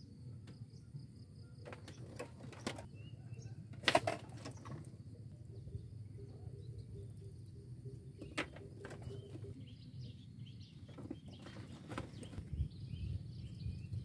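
Steady low outdoor rumble with a few sharp knocks, the loudest about four seconds in, and small birds chirping faintly in the second half.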